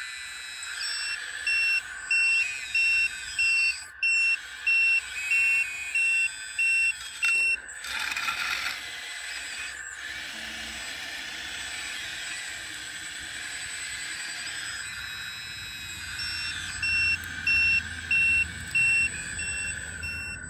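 RC Volvo L260H wheel loader model's reversing beeper sounding steady high beeps, about two a second, in two runs as the loader backs up, over the steady high whine of its drive. A brief scraping rush comes about eight seconds in.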